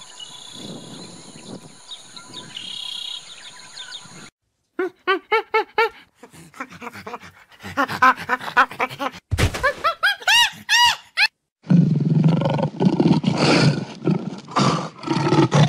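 Faint outdoor ambience for about four seconds, then a break followed by a run of short, rising-and-falling monkey calls that grow louder and faster. Near the end comes a loud lion roar with a growl.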